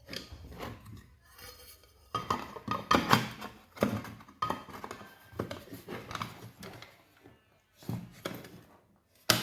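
Irregular clicking and clattering of small hard objects being handled.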